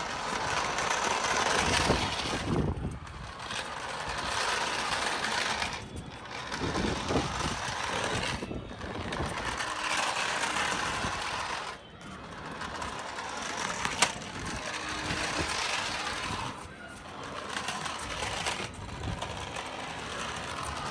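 Toy remote-control car's small electric drive motor and plastic gears whirring in runs of a few seconds, with short breaks between them as the car is driven and stopped.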